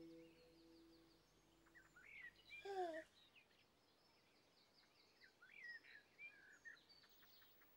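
Very quiet outdoor ambience with faint birds chirping now and then, the loudest calls about two and a half seconds in; faint musical tones die away in the first second.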